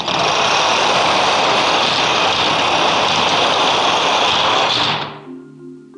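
A large field of dominoes toppling in a dense, continuous clatter that fades out about five seconds in, when marimba music begins.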